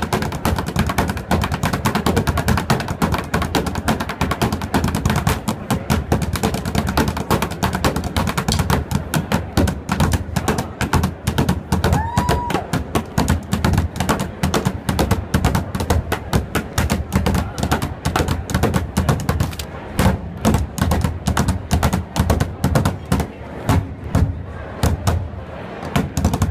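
Bucket drumming: two players beating fast, dense rhythms with drumsticks on an upturned plastic barrel. The strokes thin out into more widely spaced hits over the last several seconds.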